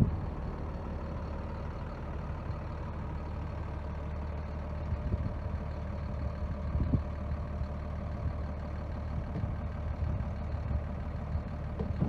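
John Deere 4955 tractor's six-cylinder diesel engine idling steadily, with a few light knocks about halfway through.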